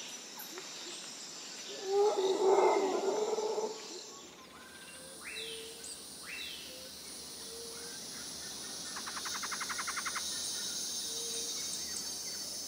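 Wild-animal ambience track: a loud, rough animal call about two seconds in, lasting over a second, then a few short bird calls and a fast trill near ten seconds, over a steady high hiss.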